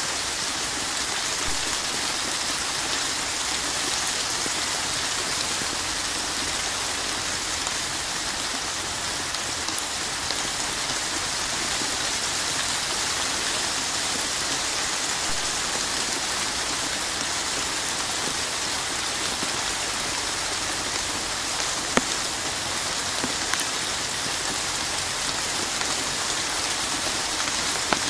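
Steady rain falling, an even hiss, with a few louder single drop hits in the later part.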